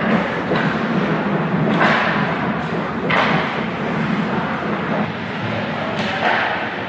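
Ice hockey rink play: a steady rushing hiss with four sharp knocks and thuds, a little after the start, near 2 s, just after 3 s and near the end.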